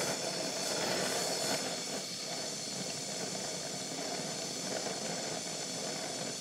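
Oxyacetylene welding torch flame hissing steadily against a steel tube, a carburizing flame with a reducing zone, while the tube's edge melts into a weld pool.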